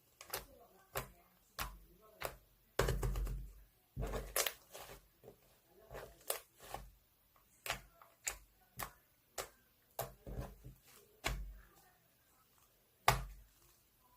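Sticky slime being pressed and squished by hand: a run of separate wet pops and clicks, roughly one or two a second, with a longer crackling stretch about three to five seconds in and one sharp, loud pop near the end.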